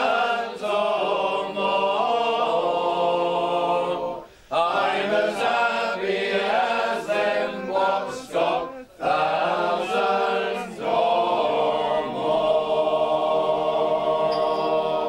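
A group of voices singing a folk song chorus together in phrases, with short breaks between them, ending on a long held chord near the end.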